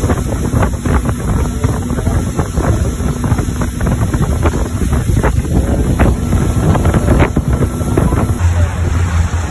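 Motorboat under way: a steady low engine drone under heavy wind buffeting on the microphone and water rushing past the hull.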